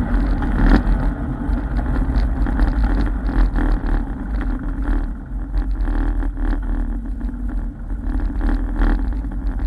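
ATV engine running as the machine rides along, a little quieter in the second half.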